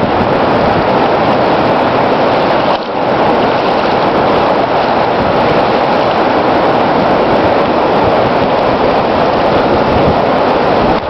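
Swollen Moira River floodwater rushing and breaking in white-water waves: a loud, steady rush with a brief dip about three seconds in.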